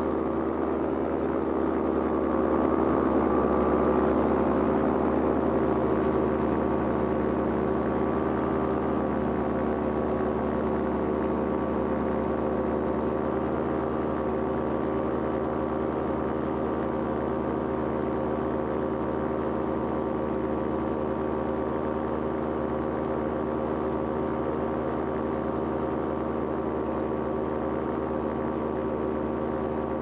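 Paramotor engine and propeller running steadily in flight, a little louder for a few seconds near the start and then even.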